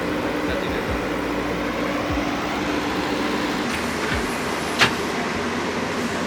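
Backhoe loader engine running steadily, with a sharp click or knock near the end.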